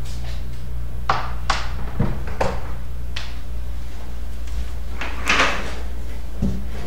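A few separate knocks and clicks, then a short scrape about five seconds in, as objects are handled on a desk, over a steady low hum.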